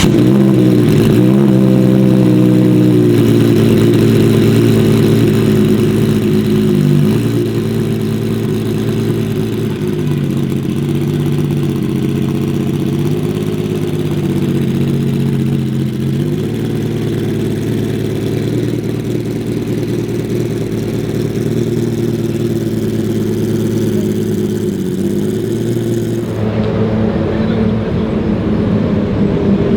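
Ferrari supercar engine idling steadily just after starting, its revs rising and falling slightly. Near the end the higher hiss drops away while the engine note continues.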